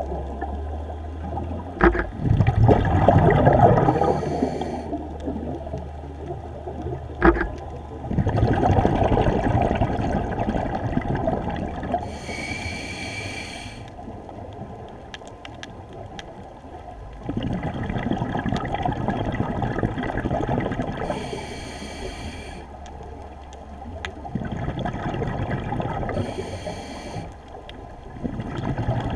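Scuba diver breathing through a regulator underwater: repeated rounds of gurgling exhaust bubbles, with shorter hissing breaths between them. There are two sharp knocks in the first eight seconds.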